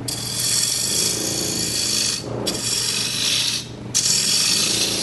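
Turning tool cutting into wood spinning on a lathe, a hissing shaving sound in three passes, each separated by a brief pause, over the steady hum of the lathe running.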